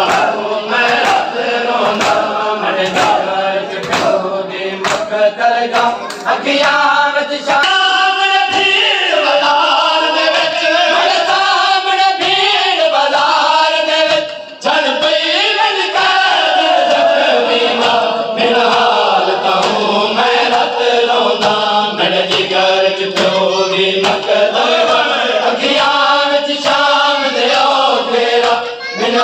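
Crowd of men chanting a noha (Shia lament) together, with sharp hand-on-chest slaps of matam keeping the beat about once a second.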